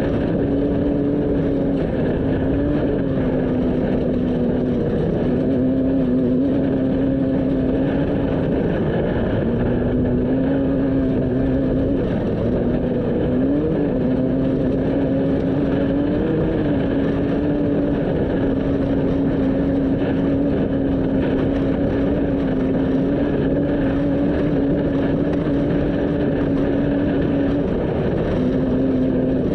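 Off-road race vehicle's engine running at speed at a steady pitch, over a constant rush of tyre and wind noise. The pitch dips briefly a few times, and the engine tone drops out for a moment near the end.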